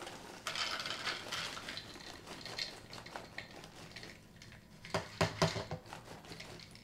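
Dry cereal (CinnaGraham Toast Crunch squares) pouring from the box's plastic liner bag into a bowl. The bag crinkles and the pieces rustle and rattle, with a flurry of sharper clatters about five seconds in.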